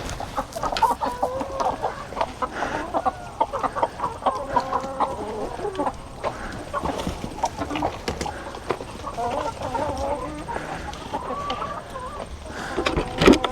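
A flock of chickens clucking, many short calls overlapping one another, with scattered light clicks and knocks.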